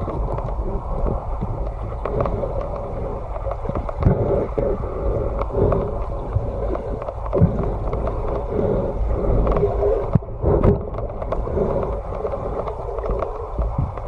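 Muffled water noise heard through a camera's waterproof housing: a steady low rumble broken by irregular knocks and clicks, with a louder cluster of thumps about ten seconds in.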